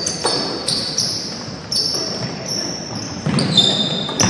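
A basketball bouncing on a hardwood gym floor, with sneakers squeaking sharply on the court between the bounces, in the echo of a large gym.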